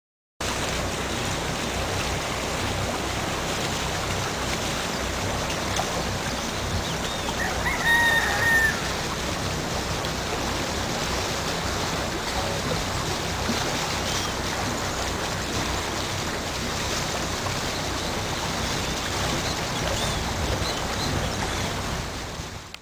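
Steady rushing of wind and water past a sailing catamaran. A bird gives one loud call about eight seconds in, with fainter bird calls later.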